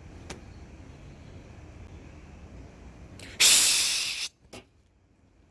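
A loud spray-like hiss lasting about a second, starting suddenly past the halfway point, followed by a brief second hiss; before it, a faint click over a low rumble.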